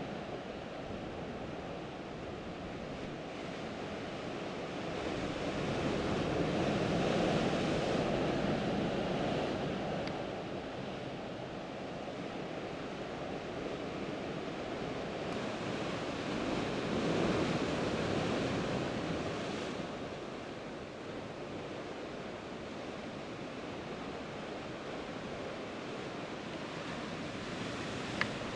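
Sea surf breaking and churning against rocks, a steady rushing wash that swells louder twice and eases again.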